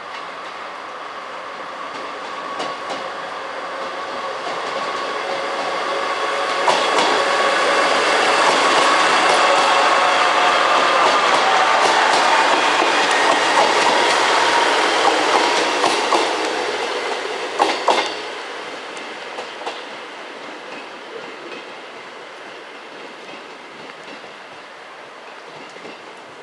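A train passing, its sound building to a peak in the middle and fading away, with wheels clicking over rail joints at the loudest part.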